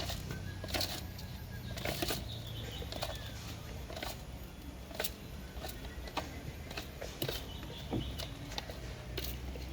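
Scattered sharp clicks and knocks at an uneven pace, with a few faint bird chirps over a low steady hum.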